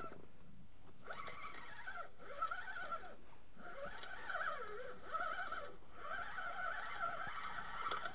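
Fishing reel being cranked while a walleye is reeled in on a jigging rod: a wavering gear whine that rises and falls with each turn of the handle, in several runs of one to two seconds with short pauses between.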